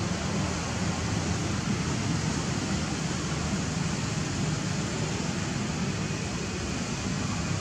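Steady rushing background noise with a low rumble underneath, unchanging and without any distinct calls or knocks.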